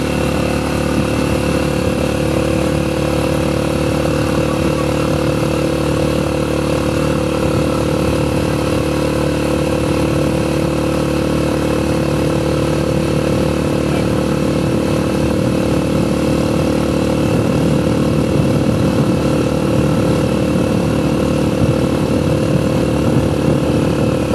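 Motorcycle engine of a motorcycle-and-sidecar tricycle running steadily while cruising along the road, heard from the sidecar.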